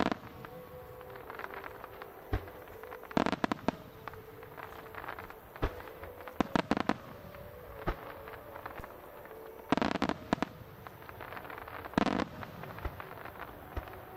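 Aerial firework shells bursting, sharp reports coming in clusters of several about every three seconds.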